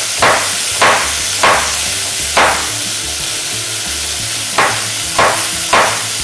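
Knife chopping a carrot on a wooden cutting board: about seven separate strokes, with a pause of about two seconds in the middle. Under them runs the steady sizzle of beef cubes searing in hot oil in a pot.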